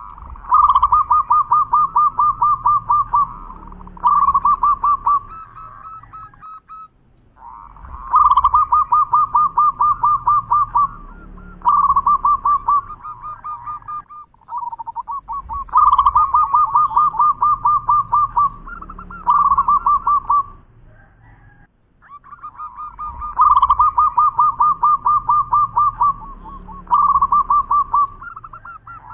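Zebra dove (perkutut) singing: four bouts of its rapid, staccato cooing trill, each about five to six seconds long, with short pauses between.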